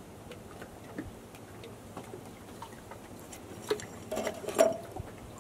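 Sparse light clicks and taps, with a short cluster of louder taps about four seconds in.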